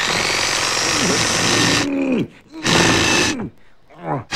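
Cartoon sound effect of an electric power drill whirring into wood with a steady whine. It runs about two seconds, stops, runs briefly again past the middle, and starts once more at the end.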